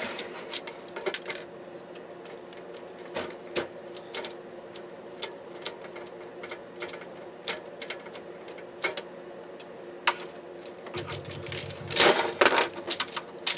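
Plastic and metal parts of a disassembled DVD-RW drive clicking and clattering as they are handled and pried apart to free the laser pickup, scattered clicks with a louder flurry of clatter near the end.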